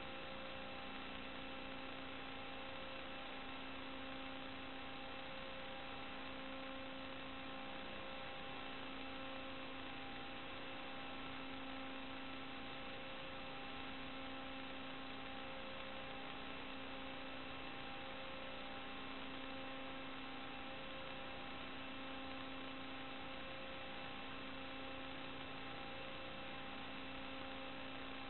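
Steady electrical hiss with a constant hum and a few fixed tones that never change pitch, and no motor sound: the empty audio channel of an analog FPV video link.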